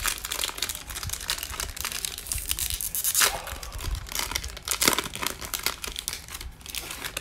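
Foil wrapper of a Panini Mosaic Football hobby pack being torn open and crinkled by hand, a continuous crackling with louder crackles about three and five seconds in.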